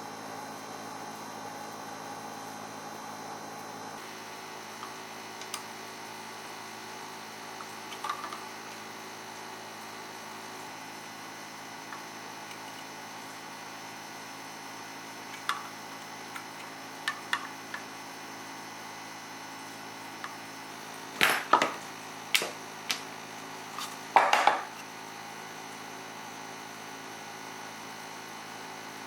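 Steady electrical hum, with scattered small clicks and a few louder knocks and clatters about three-quarters of the way through.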